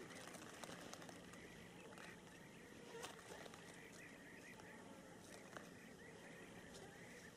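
Near silence: faint outdoor ambience with soft high chirping throughout and a few light clicks from handling the fishing line, the loudest about three seconds in.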